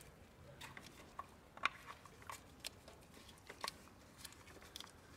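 Faint scattered small clicks and scrapes as the oil filler cap is screwed back onto the valve cover of a Kubota BX25's three-cylinder diesel engine, with a slightly louder click about a second and a half in and again near three and a half seconds.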